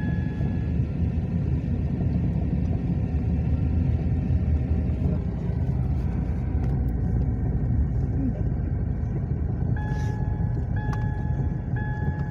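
Car cabin rumble of engine and tyres while driving slowly on a paved road. From about ten seconds in, a steady high tone repeats in short segments over the rumble.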